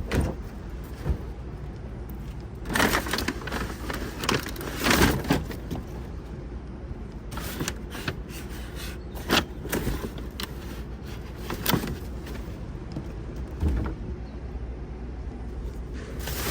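Rummaging through discarded items in a dumpster: irregular knocks, scrapes and rustles of things being handled and moved, over a steady low rumble.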